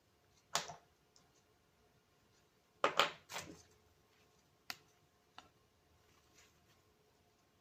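Handling noise from the parts of a chest-harness phone mount being fitted together: a few separate clacks and knocks, the loudest about three seconds in, and two sharp clicks around five seconds in.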